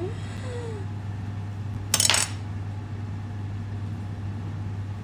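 A short, sharp clatter of a kitchen utensil against a dish, about two seconds in, over a steady low hum.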